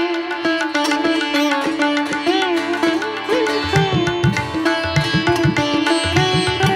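Background instrumental music in an Indian classical style: a plucked string melody with sliding notes over a steady drone, with drum strokes coming in about halfway through.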